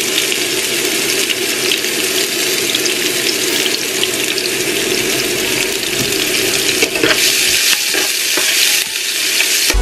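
Chopped onion sizzling steadily as it fries in oil in a frying pan. A metal spatula scrapes and stirs it a few times near the end.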